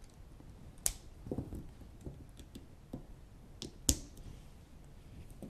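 Plastic VEX Robotics standoffs and pins snapping into the holes of plastic beams as the two halves of the catapult frame are pressed together: two sharp clicks about three seconds apart, with fainter knocks of plastic parts being handled between them.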